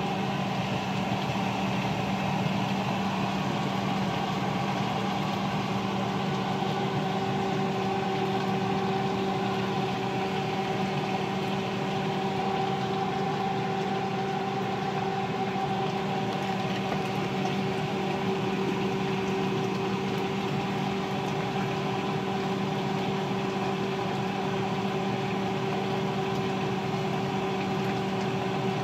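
Steady mechanical hum of a running motor, even in pitch and level throughout.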